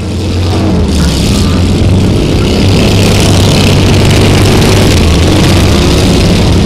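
Motors running steadily: a low, even hum with a high hiss over it, fading in at the start.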